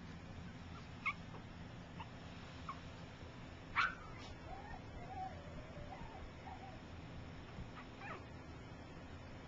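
Three-week-old Shih Tzu puppies squeaking and whimpering: several short, high, upward squeaks, the loudest about four seconds in, followed by a wavering whine for a couple of seconds and one more squeak near the end.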